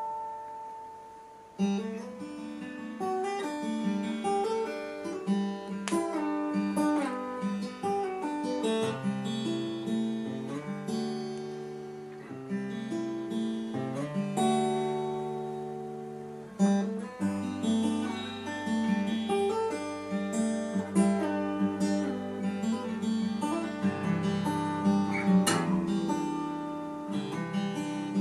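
Solo steel-string Fender acoustic guitar played unaccompanied: picked notes ringing over held bass notes. A note dies away at the start and the playing resumes with a sharp attack about a second and a half in.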